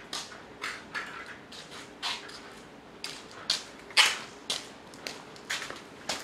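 Footsteps on a wet concrete floor, about two steps a second, the loudest about four seconds in.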